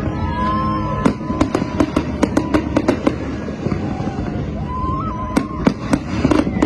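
Fireworks going off: a quick run of about a dozen sharp cracks over two seconds, then a second cluster of cracks a few seconds later.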